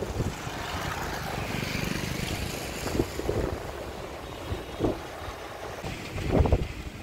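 Street and road noise heard from a moving cycle rickshaw, with wind on the microphone and a motorbike passing. A few short knocks and rattles cut through it, the loudest about six seconds in.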